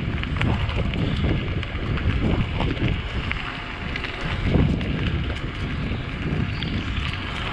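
Wind buffeting the microphone while riding an electric mountain bike, with a low rumble that swells and fades and a few faint clicks.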